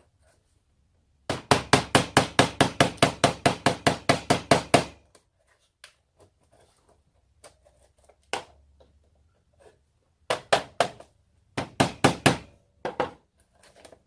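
Rapid hammer blows on a VTech electronic toy, about five a second for some three and a half seconds, then a single blow and several short bunches of blows with pauses between, as a part is hammered out of it.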